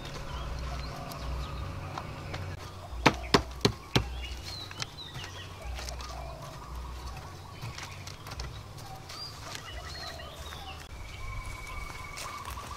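Four sharp knocks in about a second, from a wooden pole ladder being knocked into place against a brick wall. Birds chirp throughout.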